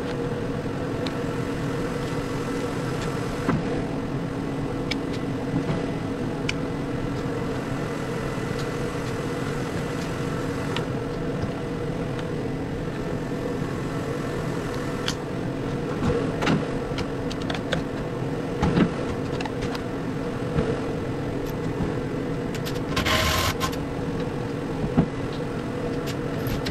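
A steady droning hum made of a few fixed tones, with scattered light clicks and knocks from metal parts being handled on the battery pack, and a short hiss near the end.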